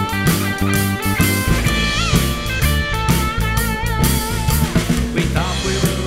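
Country rock instrumental break: a lead guitar plays a melody with string bends and vibrato over a steady drum beat and bass.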